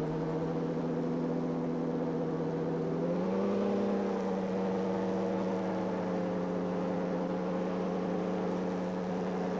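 Powered parachute's engine and propeller running steadily in flight, a continuous drone that rises slightly in pitch about three seconds in as the throttle is opened a little, then holds.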